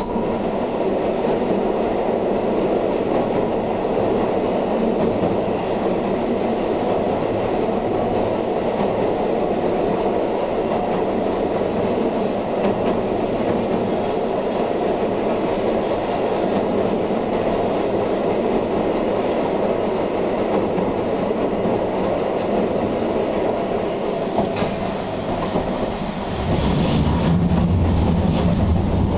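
Tosa Electric Railway streetcar with nose-suspended traction motors running along the rails, heard from the driver's cab: a steady rumble of wheels and motors. Near the end come a few rail clicks, then a louder, deeper rumble for the last few seconds.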